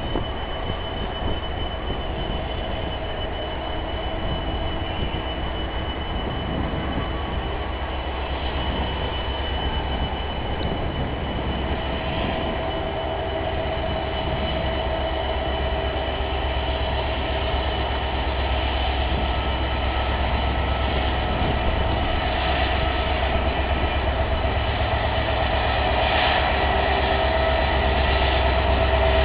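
Passenger train pulling out under a 4000 hp EMD WDP4 diesel-electric locomotive: a steady low engine rumble with a few steady tones above it, slowly growing louder.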